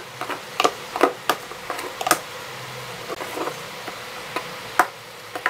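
Cosmetic product containers (tubes and bottles) being handled and set down into a drawer: a string of irregular light clicks and taps, a few of them sharper.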